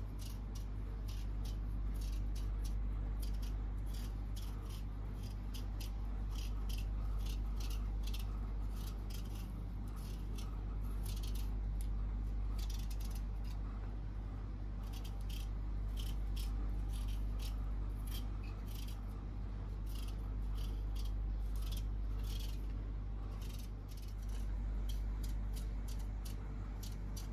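Small kitchen knife peeling a raw potato by hand: short scraping strokes of the blade through the skin, about two a second and unevenly spaced, over a steady low hum.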